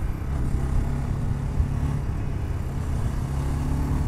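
BSA Gold Star 650's single-cylinder engine running at a fairly steady pitch while the motorcycle is ridden.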